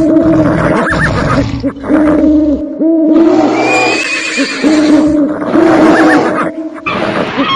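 Loud mix of animal calls: many short, overlapping cries that rise and fall, over a low rumble that drops out about two and a half seconds in. The same stretch of calls seems to repeat about every five seconds, like a looped sound-effect track.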